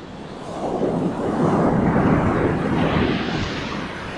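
Ocean surf: a wave swells and breaks, loudest about two seconds in, then turns to a higher hiss as the foam washes up the sand near the end.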